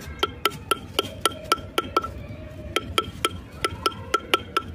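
Small hammer tapping a hand-engraving chisel into a metal katora bowl: quick, ringing metallic taps, about four a second, with a short pause a little after two seconds.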